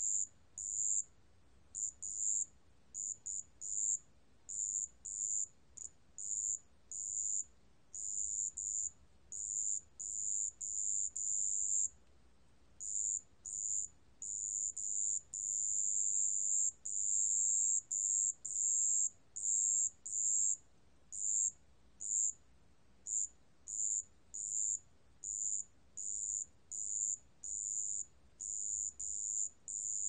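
A 습지방울벌레, a small Korean ground cricket, recorded at 27 °C, singing a high, pure-toned trill. The song comes in bursts from a fraction of a second to over a second long, separated by brief pauses.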